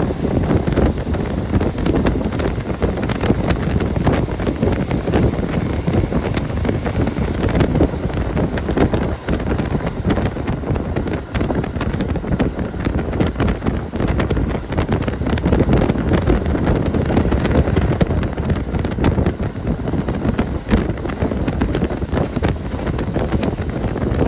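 Wind buffeting the microphone: a steady, loud rumble with constant crackle and no clear engine or horn tone.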